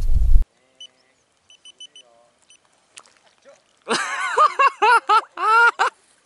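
Wind buffeting the microphone, cut off abruptly half a second in. Then near quiet with a few faint high chirps, and near the end about two seconds of a loud, high-pitched voice in short syllables that rise and fall in pitch.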